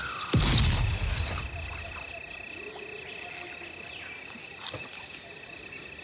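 A single heavy thud about half a second in, with a low rumble fading away over the next second or so. Under it, a steady chorus of insects drones at two high pitches.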